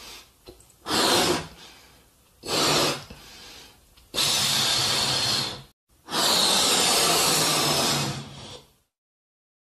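Breath blown hard into rubber balloons to inflate them: four puffs of rushing air, two short ones followed by two long ones lasting a couple of seconds each, with short pauses between.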